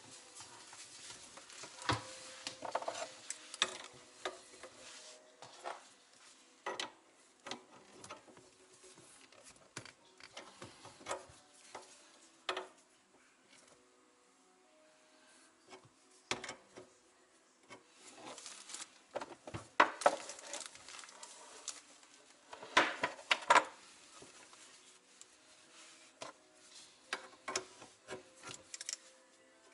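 Two 19 mm wrenches working a compression nut on a copper water-supply line loose, with irregular metallic clicks and knocks of steel on brass and a cloth rag rubbing against the pipe. The handling is loudest a couple of seconds in and again around two-thirds of the way through, with a quieter pause in the middle.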